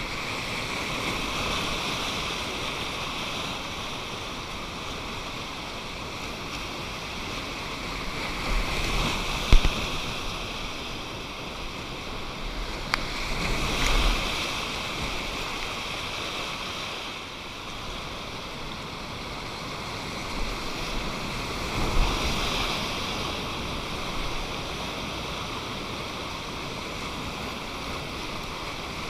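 Whitewater river rapids rushing: a steady noise of moving water that swells louder a few times, with a few short low thumps.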